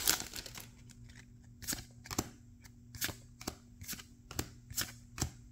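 Weiss Schwarz trading cards being flicked through one at a time from a freshly opened booster pack, each card giving a short, sharp snap, about two a second.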